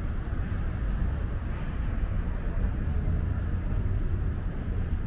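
Steady road traffic: cars driving past on a multi-lane avenue, a continuous mix of engine and tyre noise.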